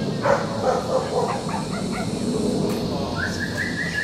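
Voices of a group of people standing around, then a quick run of about seven short high notes, rising slightly, near the end.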